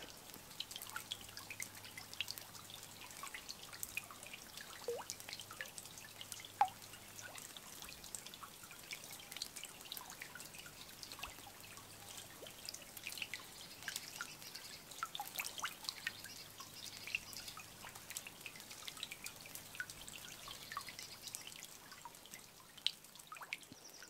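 Meltwater from thawing snow dripping into shallow flood water: many small, irregular drips and plinks, some with a short ringing pitch, almost like music.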